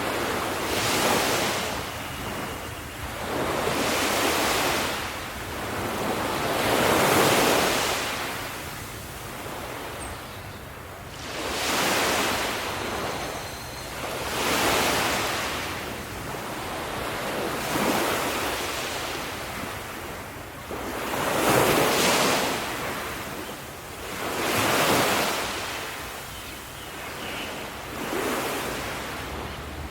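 Ocean surf breaking and washing up the shore, a wave every three to four seconds, each one swelling and then fading.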